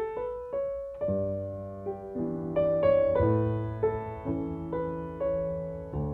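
Background music: a slow, gentle piano piece, single melody notes over held low notes.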